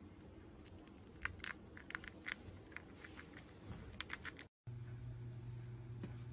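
Hamster nibbling a piece of food held in its paws: faint, irregular crisp clicks and crunches for about three seconds. They stop at a short dropout, followed by a steady low hum.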